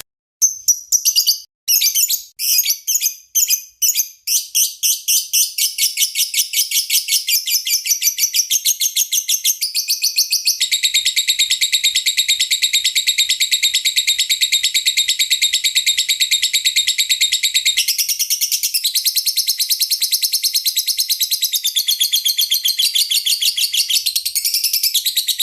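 Lovebird singing: rapid, high chirps that run together about ten seconds in into a long unbroken chattering trill lasting several seconds, then go on as quick chirping.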